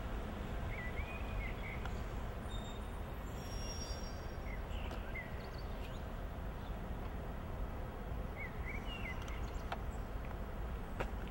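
Steady outdoor street ambience with a low rumble. A bird chirps briefly three times, and a couple of faint ticks come near the end.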